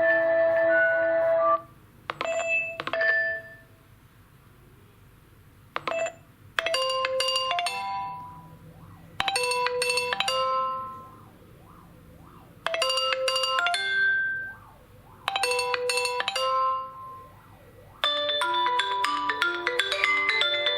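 Nokia 2.2 stock Android ringtones playing one after another. One tone ends in the first couple of seconds, then a short bell-like melodic phrase repeats about every three seconds with pauses between. A busier ringtone of quick notes begins near the end.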